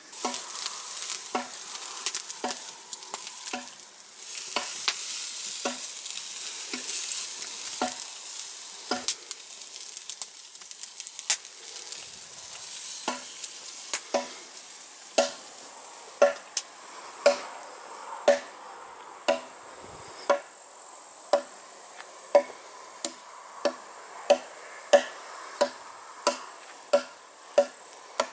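Meat sizzling on a grill over a campfire, with sharp knocks of a hatchet on wood. The knocks become regular, about one a second, and louder than the sizzle over the second half.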